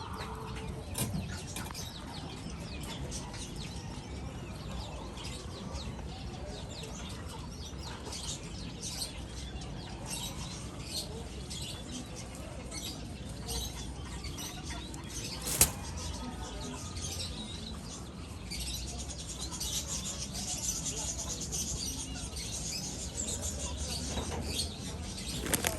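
Doves fluttering their wings, with faint high chirps, as a collared dove feeds its chicks. A single sharp click comes a little past halfway.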